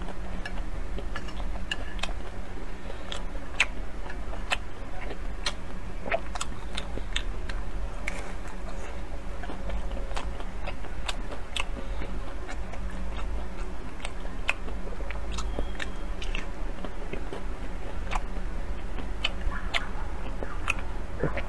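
A person chewing and biting into small pan-fried buns close to the microphone, with irregular mouth clicks and smacks.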